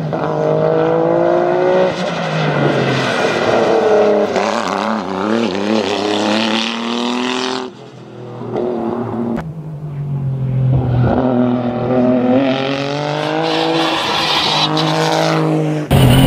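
Nissan GT-R R35 race car's twin-turbo V6 at full throttle, its pitch climbing again and again through the gears and dropping back at each shift. About eight seconds in it goes briefly quieter, then builds again as the car powers up the road.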